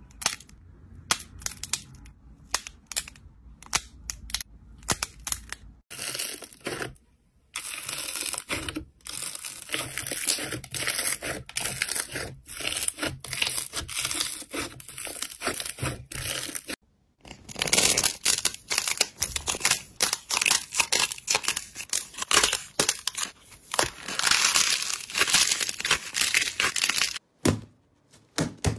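Hands squeezing, pressing and kneading slime: a dense, fast run of small sticky pops and crackles. It stops briefly twice, when one piece of slime gives way to the next.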